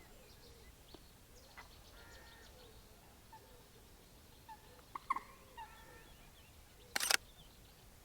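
Faint, scattered bird calls, short chirps and quick repeated notes. About seven seconds in there is one brief, sharp noise, louder than the calls.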